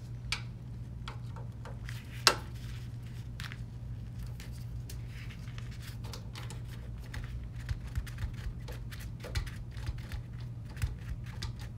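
Phillips screwdriver backing out the power-supply mounting screws on the rear of a steel PC case: small clicks and scratches of the bit in the screw heads, with one sharper click about two seconds in. A steady low hum runs underneath.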